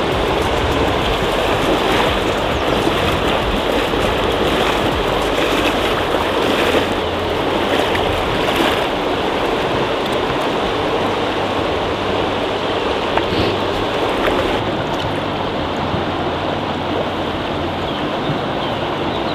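River current rushing steadily, an even noise of fast-flowing water.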